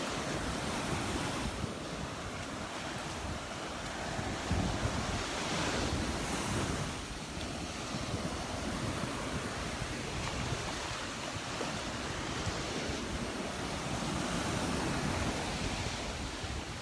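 Gulf of Mexico surf washing steadily onto the beach, with wind buffeting the microphone.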